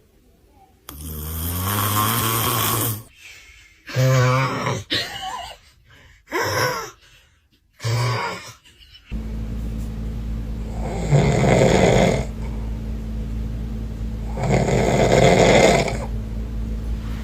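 Loud snoring: a long snore about a second in, then three shorter snorts, then two big snores about three and a half seconds apart. A steady low hum comes in about nine seconds in, beneath the last two snores.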